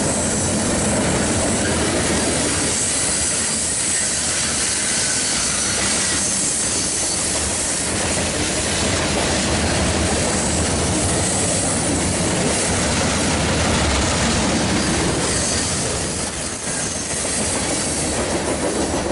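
Cars of a BNSF mixed freight train rolling past at a steady pace: steel wheels running on the rails and the cars rattling as they go by, the sound holding at a steady level and easing a little near the end.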